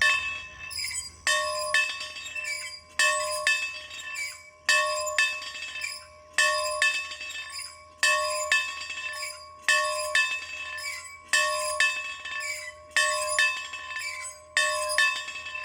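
A bell rung over and over in a steady rhythm, a strong strike about every second and a half followed each time by a lighter second strike, the tones ringing on and overlapping between strokes.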